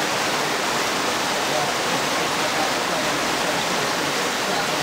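Floodwater pouring over a stone ledge and churning into a swollen channel: a steady, even rush of water.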